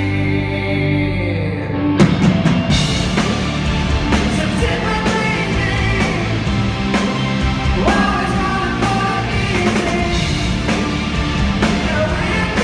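Rock band playing with a singer; drums and the full band come in about two seconds in.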